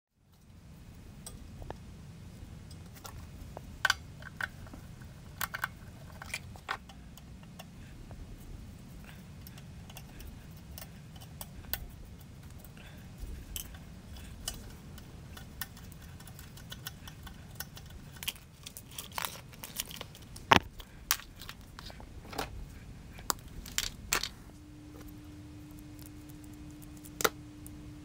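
Hands handling electrical cable, wire ends and a plastic terminal block, giving scattered sharp clicks, taps and rustles over a low steady background rumble. A steady low hum comes in a little before the end.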